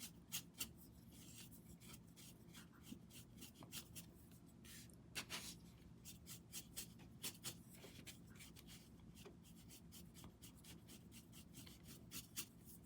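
Paintbrush strokes spreading a gray paint wash over a jigsaw puzzle: a faint, irregular run of short scratchy swishes over a low steady hum.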